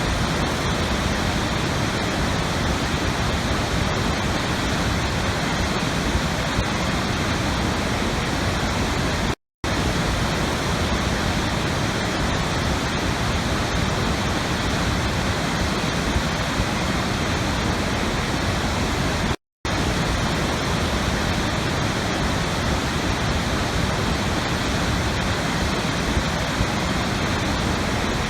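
Steady rushing water, an even hiss and rumble with no changes. It cuts out for a split second twice, about ten seconds apart.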